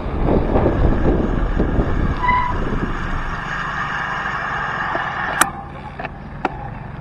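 Wind rushing over the helmet-camera microphone as a gravel bike rolls downhill, dying away as the rider slows on the disc brakes, which hum with a steady squeal for about three seconds from around two seconds in. Near the end comes a sharp click, then two fainter ones.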